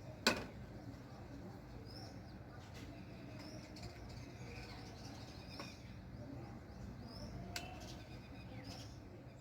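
Faint small birds chirping, with short high upward chirps every second or two over a low steady hum. A single sharp click comes just after the start and a softer one comes later.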